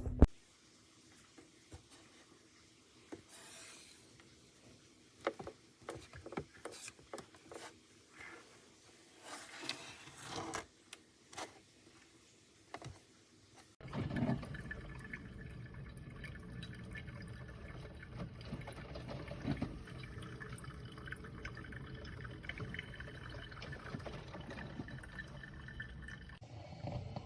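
Scattered light clicks and knocks of handling, then about halfway through a steady run of liquid sets in: water or coffee running and gurgling at a drip coffee maker.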